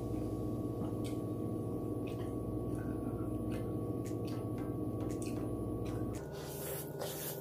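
Background music of soft, held ringing tones that changes about six seconds in, with short clicks from eating glass noodles with chopsticks and a noisy slurp near the end.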